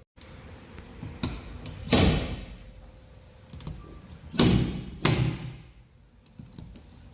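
Dent-repair tools striking a BMW 630i's aluminium hood panel during paintless dent repair: about four sharp hits, each ringing on briefly, with a few lighter clicks between.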